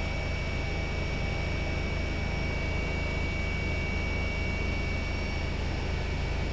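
Steady drone of a news helicopter's engine and rotor heard from on board, a constant low hum with a thin, steady high whine above it.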